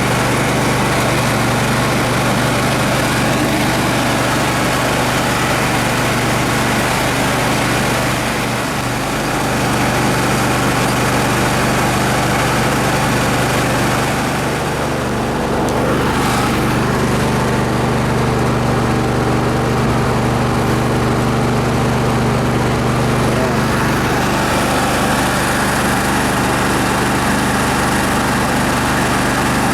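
Massey Ferguson 35 tractor engine running steadily as the tractor drives along, its note easing briefly twice, about a third and about halfway through.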